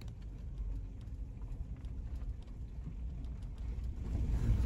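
Van driving slowly on a dirt road: a steady low rumble of engine and tyres, with scattered light ticks like gravel or twigs under the wheels, growing louder near the end.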